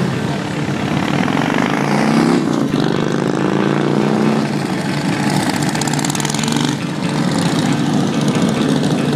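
Several cruiser motorcycle engines running as the bikes ride slowly past, their pitch rising and falling as they go by.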